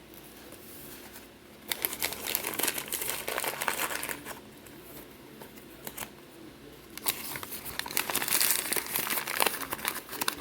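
Chunks of Argo laundry starch being crunched in the mouth, a dense crackling crunch in two bouts, the second starting about seven seconds in.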